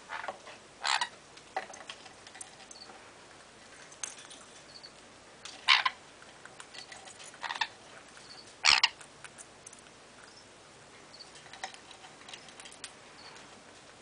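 Sun conures clambering over and playing with hanging toys: scattered small clicks and taps of beaks and feet on wood, rope and plastic, with a few short, louder sounds.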